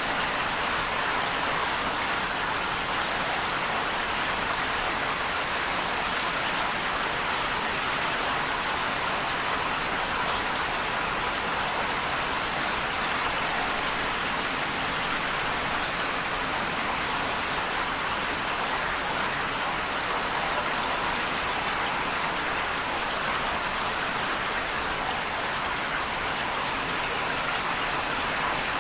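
Rain falling steadily, an even hiss of many drops.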